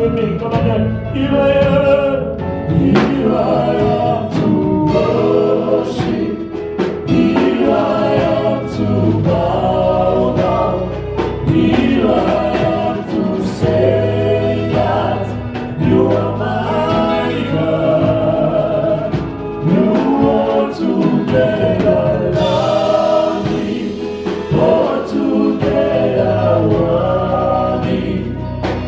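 Gospel worship song with a choir singing over instrumental backing: steady bass notes and drum hits.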